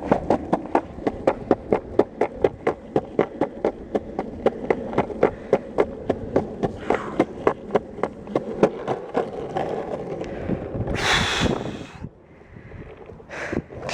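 Longboard wheels rolling over pavement seams, clacking evenly about three times a second. A louder scraping rush about eleven seconds in, then it goes quieter.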